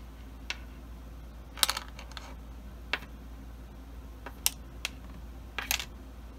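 Irregular sharp clicks and taps, about eight of them, some in quick clusters, the loudest about one and a half seconds in, over a faint steady low hum.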